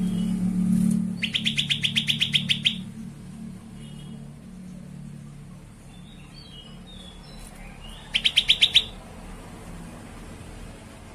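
Grey-bellied bulbul (cucak kelabu) calling: a fast trill of sharp repeated notes, about ten a second, lasting about a second and a half, then a shorter burst of the same trill later on, with faint chirps between. A low hum sits under the first few seconds.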